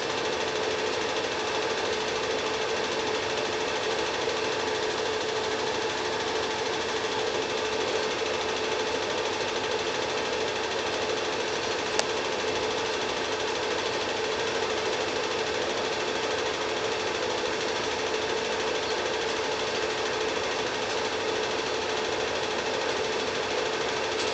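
Cine film projector running: a steady mechanical whirr with a constant hum, and a single click about halfway through.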